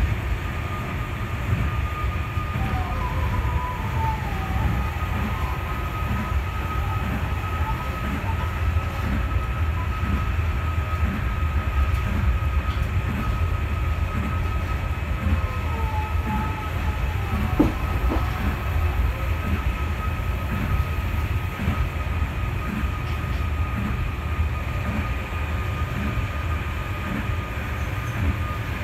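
Osaka Monorail 3000-series train running along its track beam, heard from inside the car: a steady low rumble with a thin steady whine over it and soft regular knocks about once a second. Brief squeals glide in pitch about three seconds in and again about sixteen seconds in.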